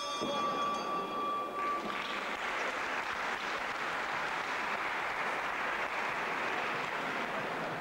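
A ring bell struck once at the start, its tone fading over about two seconds, marking the end of a round; the audience then applauds steadily.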